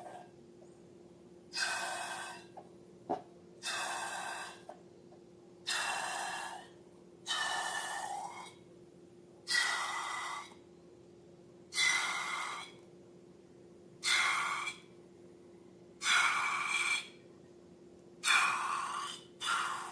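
Rhythmic breathy puffs of air, about nine in a row, each roughly a second long and about two seconds apart, over a faint steady hum.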